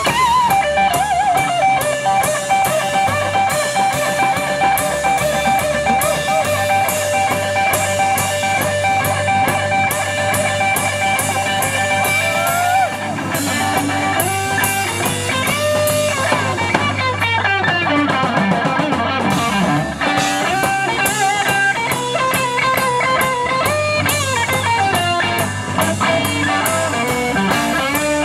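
A rock band playing, with an electric guitar lead over bass and drums. The guitar holds long sustained notes with bends over steady cymbal beats. A little past the middle the cymbals drop back and the guitar plays falling, sliding runs before the full beat returns.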